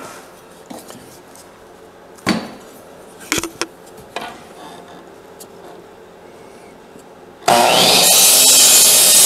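Electric miter saw started up and its blade cutting an angle through a wooden board, beginning suddenly about seven and a half seconds in and running loud with a high whine. Before that, a few light knocks and rubbing as the board is set against the saw's fence.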